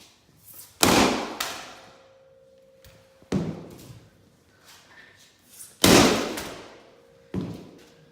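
Sledgehammer blows striking an old HP laptop: four heavy hits about two and a half seconds apart, the first and third the loudest, each trailing off over about a second.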